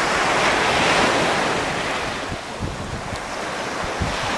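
Surf breaking and washing up a sandy beach: the wash swells in the first second, then fades. Wind buffets the microphone, giving a few low thumps in the second half.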